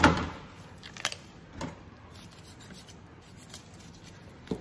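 A kitchen knife cutting through a raw whole chicken on a plastic chopping board: a sharp knock at the start, then a few short clicks among quiet scraping and tearing.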